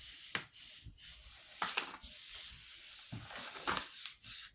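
Paper being rubbed down by hand onto a gel printing plate, a steady dry swishing with a few louder strokes, as the print is transferred from the plate.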